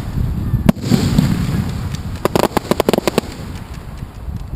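Aerial fireworks shells going off overhead: a sharp bang about a second in, then a quick string of crackling pops around the middle, over a steady low rumble.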